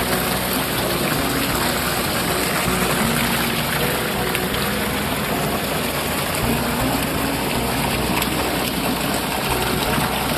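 Water running steadily in a strong, even gush.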